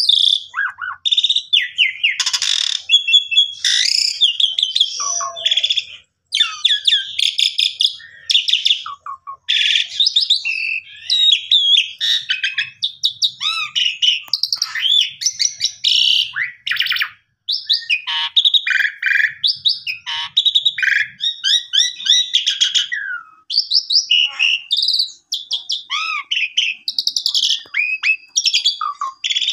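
Jalak suren (pied starling) singing continuously: a rich, varied stream of loud whistles, chirps and fast trills, full of phrases mimicked from other birds, with only brief pauses.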